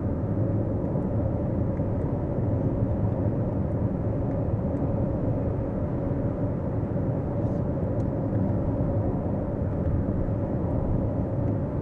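Steady tyre and wind noise inside the cabin of a Lexus RZ 450e electric car cruising on the motorway, a low rumble with a faint steady hum and no engine sound.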